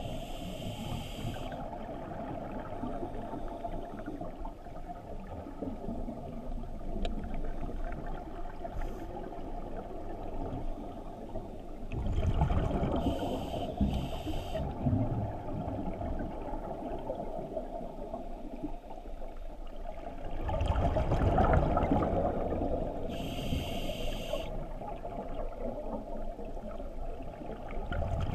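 A scuba diver breathing through a regulator underwater. Short hissing breaths come every ten seconds or so, and there are two long rumbles of exhaled bubbles, around twelve and twenty-one seconds in.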